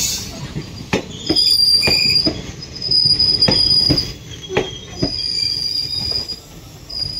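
ICF passenger coaches rolling past on the track, their wheels letting out several drawn-out high squeals of about a second each, with irregular clacks over the rail joints and a steady low rumble.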